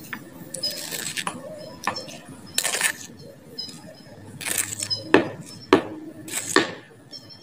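Hard plastic toys being handled: scattered light clicks and clinks, with a few short scraping sounds about two and a half, four and a half and six and a half seconds in.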